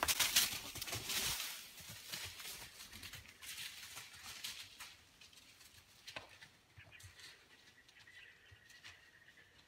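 Arrow-hit whitetail doe running off through dry fallen leaves: a loud crashing rustle of leaves and snapping twigs that fades over several seconds as she gets farther away. A few single snaps follow, and a faint thin high note sounds near the end.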